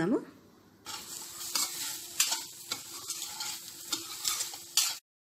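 Steel spoon stirring and scraping fried egg cubes and onions around a pan, with frying sizzle underneath. It starts about a second in as a run of repeated scrapes and cuts off suddenly near the end.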